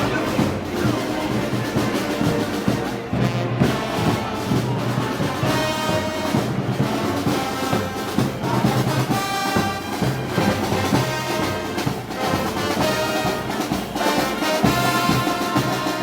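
A festival brass band playing, with trombones and trumpets carrying held notes over a steady beat, typical of the marching music of the Moros y Cristianos parades.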